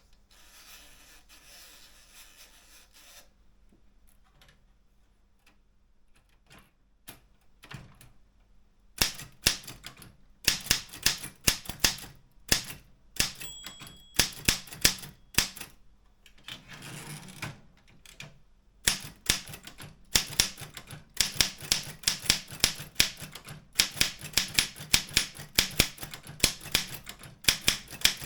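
Optima M14 manual typewriter being typed on. A few scattered clicks come first, then rapid runs of sharp typebar strikes. About two-thirds of the way through the strikes pause for a rougher, scraping stretch, then the fast typing resumes.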